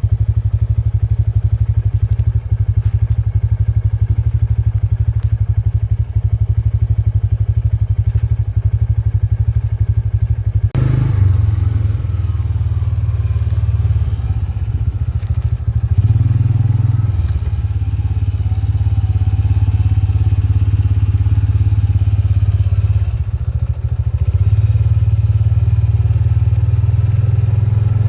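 Kubota M7040 tractor engine running steadily while baling with a Case 8430 baler, with some clatter and thumps from the machinery. The sound changes abruptly about eleven seconds in to a steadier engine note that dips and rises a few times.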